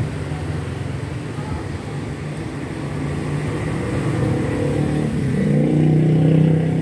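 A motor vehicle engine running, a steady low drone that grows louder and rises slightly in pitch about five seconds in.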